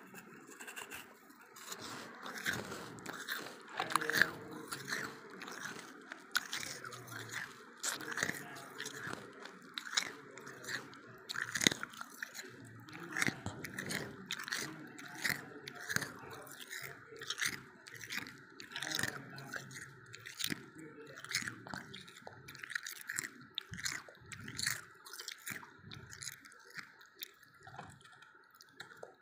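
A person biting and chewing a chunk of white freezer frost: a crisp crunch with each bite, many crunches in quick, uneven succession.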